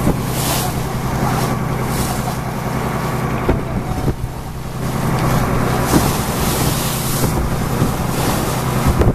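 Motorboat engine running steadily with a low hum, while gusts of wind buffet the microphone.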